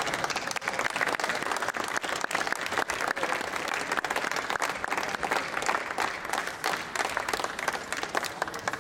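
Audience applauding with steady, dense clapping that dies away near the end.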